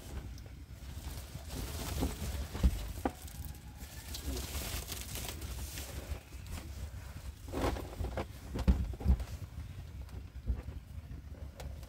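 Scattered knocks and rustling, with a short hiss about four to five seconds in and a cluster of louder knocks near the end.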